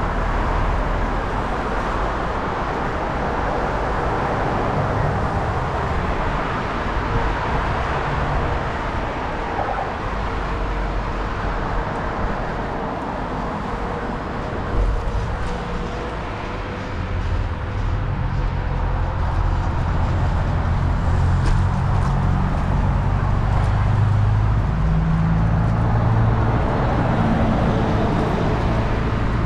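Steady road traffic noise with a low rumble, heard from a moving bicycle.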